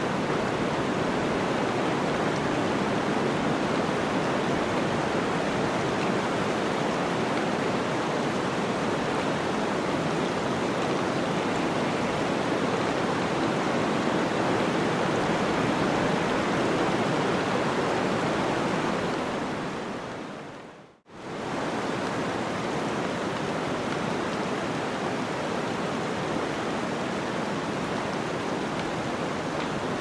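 Steady rushing blizzard wind, an even noise without distinct gusts. About two-thirds of the way through it fades out to almost nothing and quickly comes back in.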